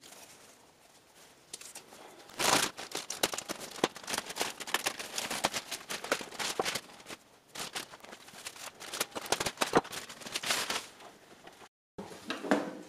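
Knife slitting through the thick plastic wrapping of a ceramic fiber insulation blanket, the plastic crackling and crinkling as it is cut and pulled open. After a brief break near the end there is a short clatter.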